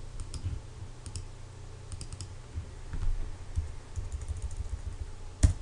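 Light, scattered clicks of a computer mouse and keyboard as a command name is typed into a field, with a sharper click near the end, over a steady low hum.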